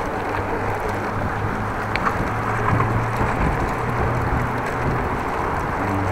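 Wind rushing over an action camera's microphone while cycling along a road, with tyre and road noise. A low hum from traffic comes and goes, and there is a faint short high chirp about two seconds in.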